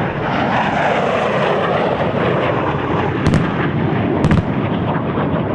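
Jet aircraft flying past, a loud rushing engine noise that drops in pitch over the first couple of seconds. Two sharp bangs come about a second apart past the middle.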